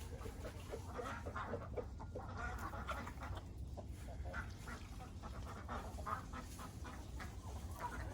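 Backyard ducks quacking, short calls coming one after another throughout, over a steady low rumble.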